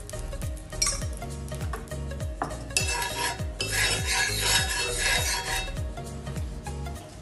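Water sizzling on a hot cast-iron dosa pan while a spoon spreads it and scrapes across the iron. The sizzle is loudest through the middle. Background music with a steady beat plays under it.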